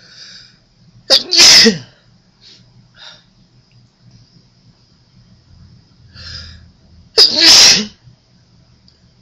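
A person sneezing twice, about six seconds apart. Each sneeze is a sudden loud burst after a short, quieter breathy build-up.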